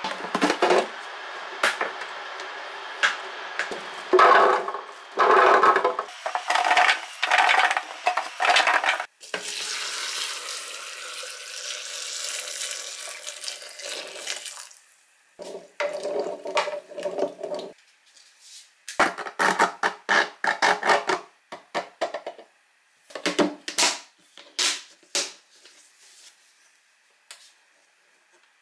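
Peeled garlic cloves clattering into a clear plastic container, then a steady pour of liquid brine for about five seconds. After that come plastic knocks and sharp clicks as the press insert and lid are fitted and latched.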